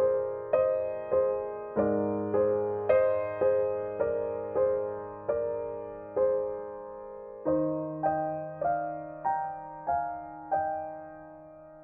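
Background piano music: a slow melody of single struck notes, about two a second, over held bass notes. Near the end the last note is left to ring and fade.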